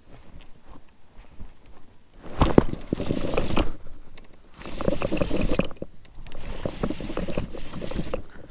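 Handling noise on a fishing kayak as a jerkbait is worked with rod and reel: three spells of clicking and scraping, each a second or so long.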